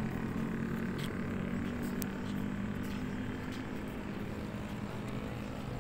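Steady low engine hum, with a few faint clicks.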